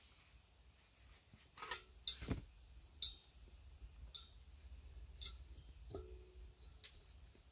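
Light metallic clicks and clinks, about seven in all, the loudest a duller knock about two seconds in and two with a brief ring: a spanner and brass fittings being handled and set against the nickel-plated tank of a petrol pressure lamp during reassembly.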